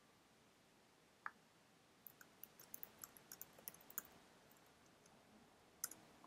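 Faint computer keyboard typing and clicks: a single click a little over a second in, then a quick run of about a dozen key presses over two seconds, and one sharper click near the end.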